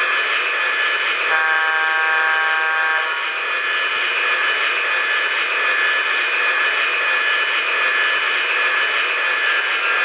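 DCC sound decoder of an HO-scale MTH Union Pacific Veranda gas-turbine locomotive model playing the turbine's steady rushing whine at standstill through its small speaker. About a second in, one horn blast sounds for roughly a second and a half.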